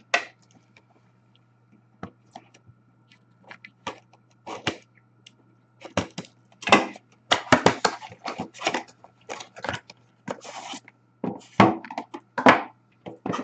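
An Upper Deck Grandeur hockey card box and its wrapping being opened and handled by hand: a run of crinkling, tearing and sharp clicks, busiest in the second half.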